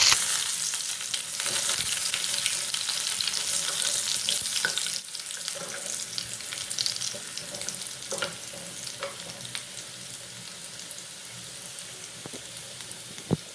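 Sliced onion frying in hot oil with whole spices in a kadai. The loud sizzle settles to a quieter frying hiss after about five seconds, with a spatula scraping now and then as it is stirred.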